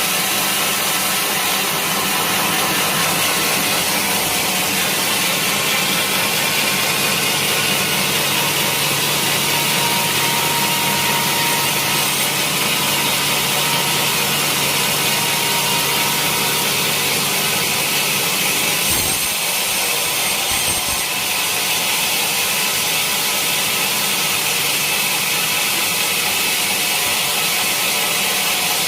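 Sawmill saw cutting through a teak log: a loud, steady cutting noise with a brief change about two-thirds of the way through.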